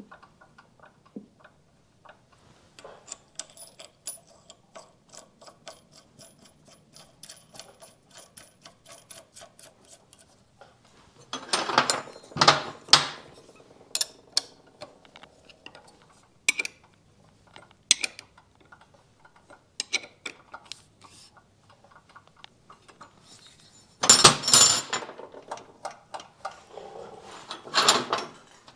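Metal hand tools working on a motorcycle ignition flywheel nut: a run of quick light metallic clicks a few seconds in, then loud clanks and scrapes of a wrench and flywheel holding tool, twice around the middle and again near the end.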